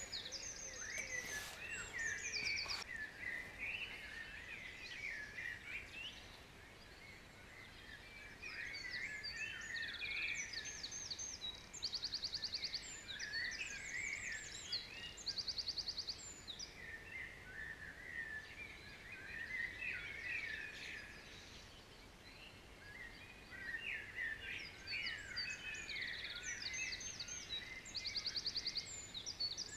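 Several songbirds singing together in a chorus: repeated fast trilled phrases high in pitch over many short chirps and warbles, coming and going, with a couple of light knocks in the first seconds.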